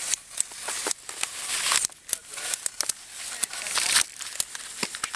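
Irregular plastic clicks and rustling as snowboard binding straps are pulled and ratcheted tight over the boots.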